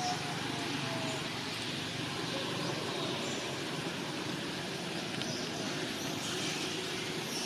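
Steady outdoor background noise: a constant hiss over a low hum, like distant road traffic, with no distinct sounds standing out.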